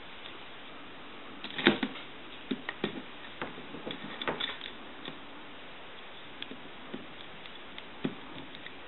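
Scattered light clicks and knocks of a replacement handset and its cord being fitted to a Northern Electric 3-slot payphone, with one louder clack about two seconds in.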